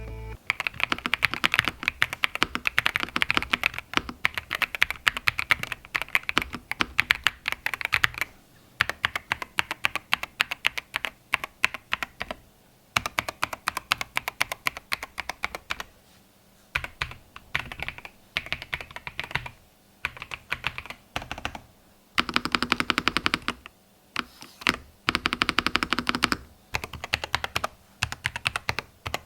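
Typing on a Royal Kludge S104 full-size wireless mechanical keyboard: rapid runs of key clacks with brief pauses between bursts, a couple of stretches a little louder and fuller.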